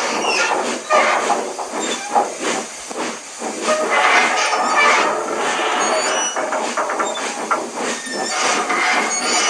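Dubbed steam locomotive sound effect: steam hissing, with uneven puffs.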